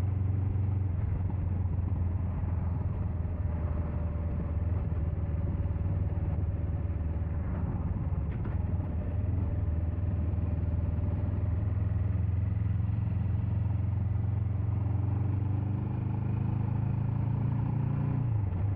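Suzuki GS500F's parallel-twin engine running steadily under way, its note rising near the end as the bike accelerates.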